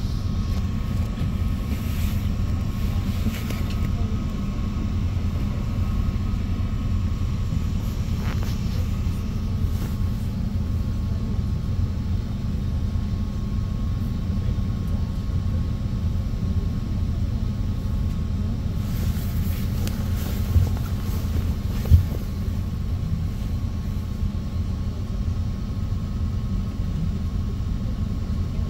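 Steady low rumble of a bus in motion, heard from inside the cabin, with a faint steady whine. Two short knocks come about twenty seconds in.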